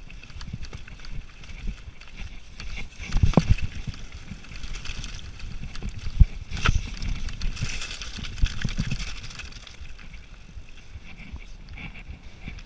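Specialized Demo 7 downhill mountain bike rattling and clattering over loose rocky scree, with tyres crunching on stones and sharp knocks from hard impacts at about three and seven seconds in. It gets quieter after about ten seconds as the trail smooths out.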